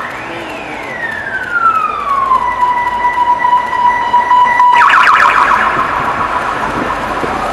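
Motorcade escort vehicles' sirens on an emergency run: a wailing tone that falls and then holds steady, switching about two-thirds of the way in to a fast warbling yelp, over the noise of passing vehicles.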